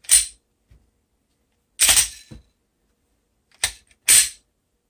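Sharp mechanical clacks of a Glock 20 pistol being handled: one at the start, one about two seconds in, and a quick double clack near the end.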